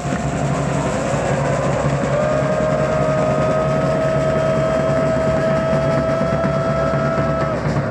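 A stadium crowd of football supporters over a dense wash of noise, with one long, steady horn-like note held for about five seconds from around two seconds in.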